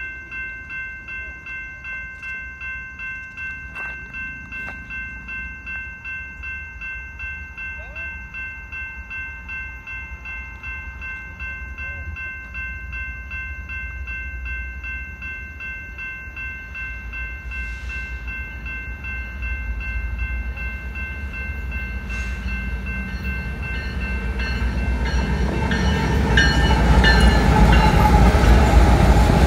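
Railroad crossing bell ringing steadily at about two strokes a second. The rumble of an approaching BNSF diesel freight train grows from about two-thirds of the way in, and the lead locomotives pass loudly near the end.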